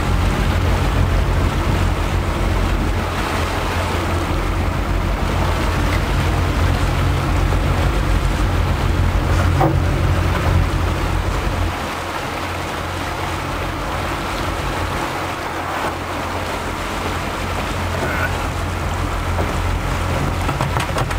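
Fishing boat's engine running with a steady low drone, under water washing around the hull and wind on the microphone. The engine hum drops back for a few seconds past the middle, then builds again.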